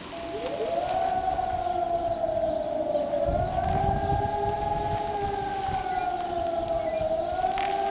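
Civil-defence warning siren sounding a test alarm. It winds up about half a second in, then gives a long howl that slowly falls and rises again in swells of a few seconds each.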